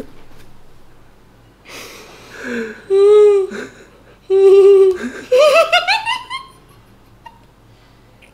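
A woman stifling laughter with her lips pressed shut. There is a breathy puff, then two held, muffled hums, then a run of high giggles that climbs in pitch before it breaks off.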